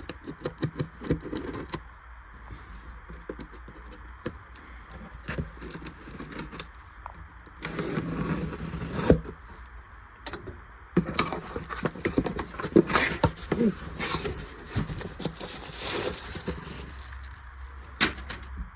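Cardboard shipping boxes and packaging being handled and opened: scraping, rustling and small knocks in irregular bursts.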